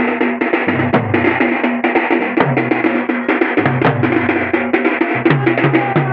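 Several rope-tensioned dhol barrel drums played together in a fast, dense rhythm, the deep bass-head strokes dropping in pitch after each hit, over a steady held tone.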